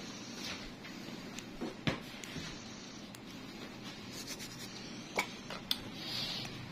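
Steel nail nippers snipping at a toenail: a few sharp clicks, the loudest about two seconds in and two more a little after five seconds, over faint rubbing and handling noise.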